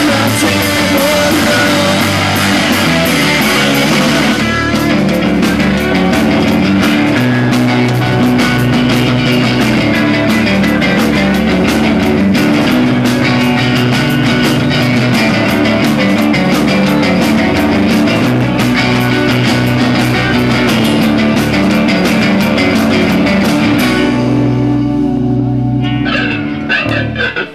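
Live rock band playing loud, with electric guitars, bass and drums, the recording overblown and distorted. About four seconds before the end the drumming stops and a held chord rings out as the song finishes.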